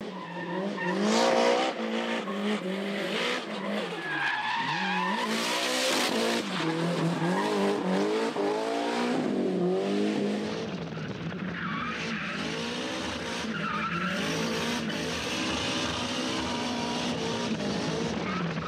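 Drift car engine revving hard, its pitch climbing and dropping again and again as the throttle is worked, with tyres screeching through the slides.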